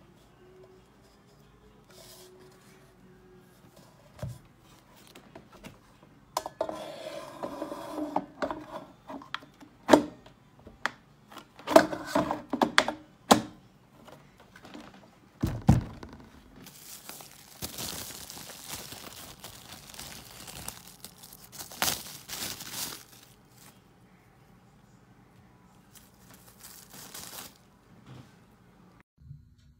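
Unboxing an air fryer: its plastic body and cardboard box being handled, with scattered sharp knocks, a deep thump about halfway, and long stretches of crinkling and rustling packaging.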